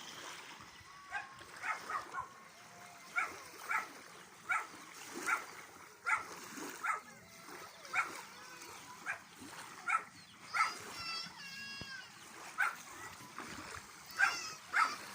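Short, sharp animal calls repeated about once a second, with a brief warbling call near the middle and again near the end.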